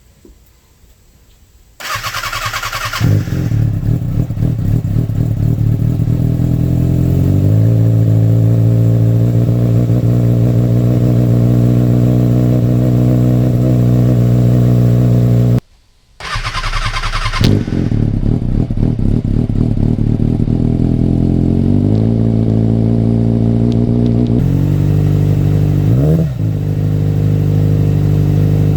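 2007 Kawasaki ZX6R inline-four cranked on the starter and catching, through a freshly installed MJS aftermarket header with the catalytic converter deleted. It idles and settles lower after a few seconds, shuts off, is restarted, then gets two quick throttle blips near the end. It is running rich on a zeroed Power Commander map.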